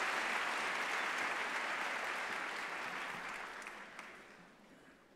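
Audience applauding, the clapping fading away over the last two seconds.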